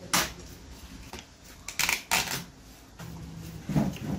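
Paper rustling in several short bursts as park entrance tickets are handled.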